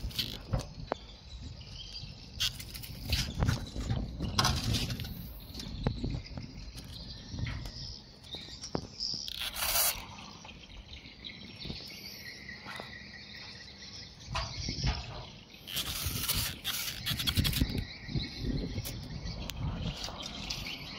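Hand trigger spray bottle squirting in short hissing bursts a few seconds apart, over a steady background of insects and birds chirping.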